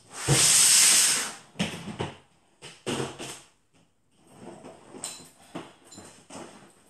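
Rummaging through makeup for another eyeshadow: a loud rustling scrape just after the start, then a run of small knocks, clicks and rattles as items are moved about.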